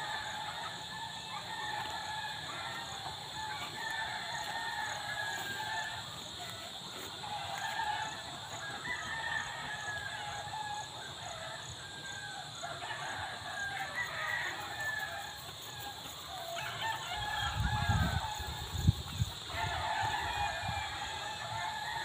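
Several roosters crowing one after another and over each other, with a steady high insect drone behind them. A few low thumps come about three-quarters of the way through.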